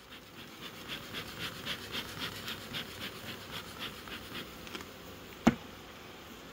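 Bee smoker's bellows being pumped rapidly, a quick run of hissing puffs about three to four a second, stopping after about four and a half seconds. A single sharp click follows about five and a half seconds in.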